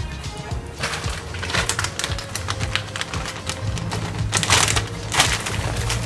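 Plastic bag of chopped coriander being handled and opened, crinkling and crackling in irregular bursts that grow denser and louder in the second half, over a steady low hum.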